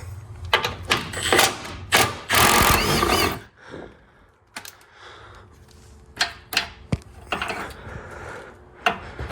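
Hand tools working loose the tight bolts of a small transmission pan: irregular metal clicks and clanks, with a denser run of rattling about two to three seconds in.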